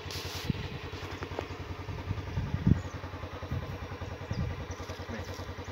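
An engine idling steadily, a rapid, even throb, with a few light knocks, the loudest about halfway through.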